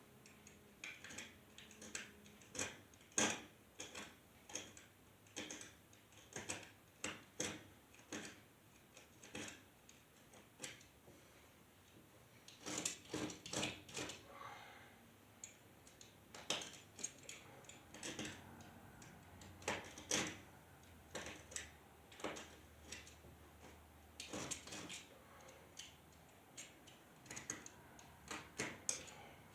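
Irregular light clicks and clinks of metal hardware and hand tools being handled, one to a few a second, bunching into quicker runs about halfway through.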